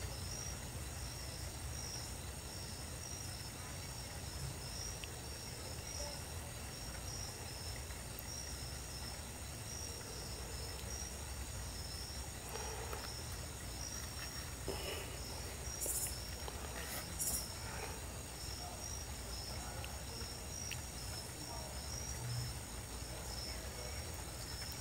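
Night insects chirping in a steady pulsing rhythm, with a continuous high trill behind them, over a low steady rumble. Two brief sharp clicks come a little past the middle.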